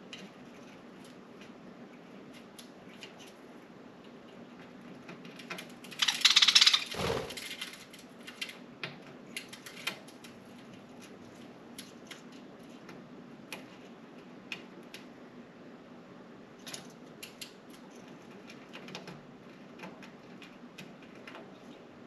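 Budgies moving about on window blinds: scattered light clicks and taps, with a louder rattling burst lasting about a second, some six seconds in.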